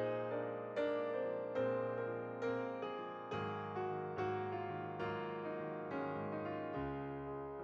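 Background music: a gentle piano piece with notes struck at a slow, even pace.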